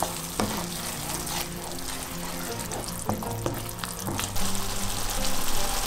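Quinoa, onion and chili paste in sesame oil sizzling in a frying pan while a wooden spatula stirs it, with short scrapes and taps on the pan. The sizzle grows louder about four seconds in.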